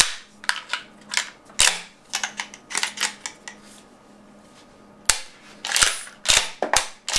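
An APS CAM870 CO2 airsoft shotgun firing, heard as a quick string of sharp cracks, then a pause of about a second and a half, then several more cracks.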